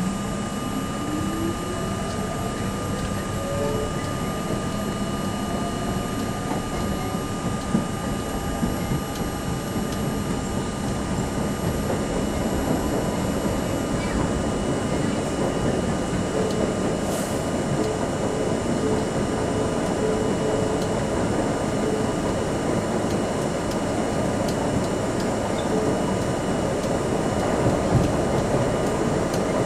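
New York City Subway C train pulling out of a station and running through the tunnel, heard from inside the car: a whine rising in pitch over the first few seconds as it accelerates, then a steady rumble of wheels on rail with a few sharp clicks.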